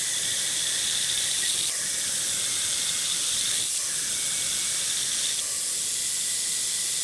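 Compressed air blowing steadily onto a steel bushing as it is turned on a metal lathe with a carbide tool, a continuous hiss that cools the work and clears the chips. A faint steady whine from the cut sits under the hiss.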